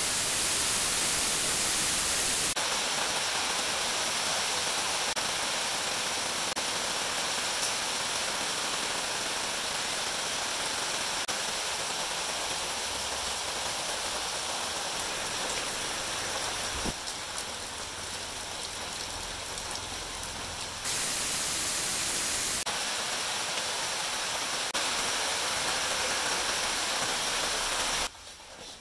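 Steady loud hiss like static or rain, its level stepping up and down abruptly several times and dropping sharply near the end.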